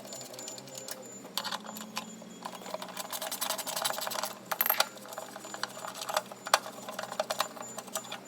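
Ratchet with a 6 mm hex bit clicking in quick runs as it backs out the hex bolts on the skid plate's oil-filter access panel, with a few sharper metal ticks.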